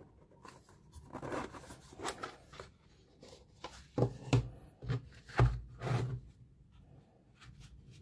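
Black pen gift box being opened by hand: the lid scrapes and rubs as it is worked off, then a few sharp knocks and thumps as the box and lid are put down on the table.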